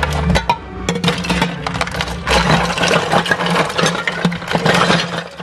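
Glass beer bottles and aluminium cans clinking and clattering against each other in a cooler as a hand rummages through them, a rapid irregular run of clinks, over a steady low hum.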